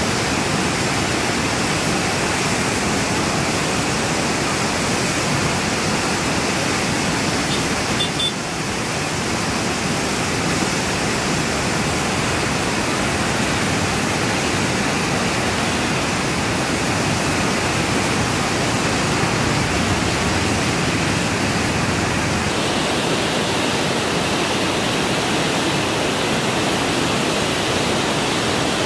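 A river in full flood, fast muddy water rushing and churning in a steady, loud roar.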